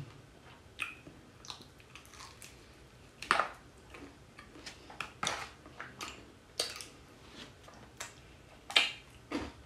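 Close-miked chewing of crispy fried chicken: irregular crunches and wet mouth clicks, roughly one every half second to a second, the loudest near the end.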